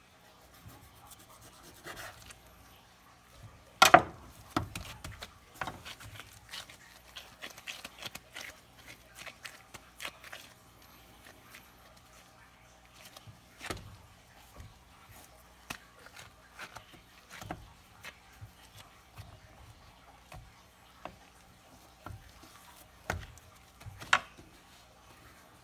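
Chef's knife cutting through a beef rib roast and knocking on a wooden cutting board, with scattered knocks and rubbing as the steaks are handled. The sharpest knock comes about four seconds in, and two more come near the end.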